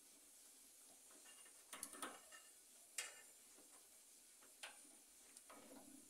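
Faint clicks and rustling of hands handling wires and a small plastic connector inside an opened microwave oven, a handful of small clicks spread over a few seconds as a test lead's plug is worked onto a door-switch terminal.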